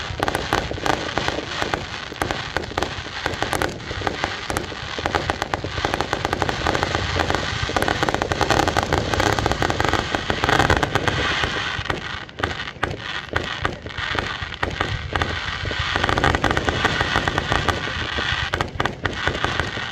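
Fireworks display: a dense, continuous run of bangs and crackling, thinning out briefly about twelve seconds in before picking up again.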